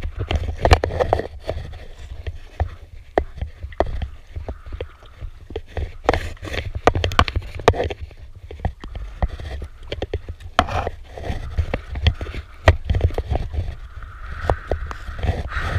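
Kayak paddling from an ITIWIT inflatable kayak: an aluminium paddle dipping and splashing in the water, with frequent sharp clicks and knocks, over a low wind rumble on the microphone.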